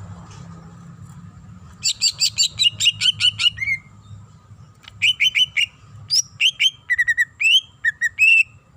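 Cucak ijo (green leafbird) singing a varied song of imitated phrases. It starts with a fast run of sharp down-slurred notes about two seconds in. After a short pause it gives a string of changing whistled phrases and short trills.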